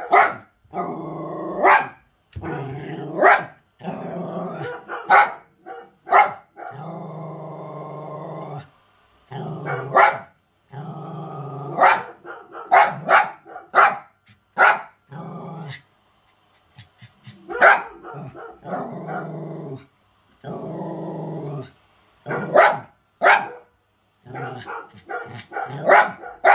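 A dog growling in long stretches, broken again and again by short sharp barks.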